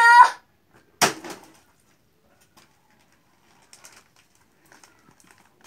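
A sealed plastic zip bag filled with water and an egg dropped onto a concrete floor, landing with one sharp slap about a second in; the water cushions the egg, which comes out with only a small crack. Faint crinkling of the plastic follows as the bag is picked up.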